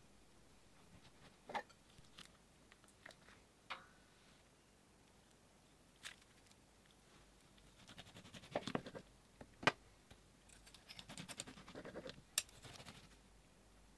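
Clear slime and a soft clay pancake being cut with a fork and squeezed and pulled apart by fingers: scattered small sticky clicks at first, then runs of crackling squelches with a few sharp clicks near the middle and near the end.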